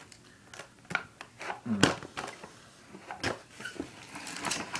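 Candy packaging handled and rustled, with scattered light clicks and taps and a crinkling rustle near the end.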